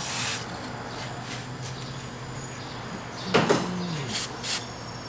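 Short hiss of an aerosol can of penetrating oil sprayed onto a rusted sway bar link nut. About three seconds in comes a louder, brief sound falling in pitch, then two very short hisses near the end.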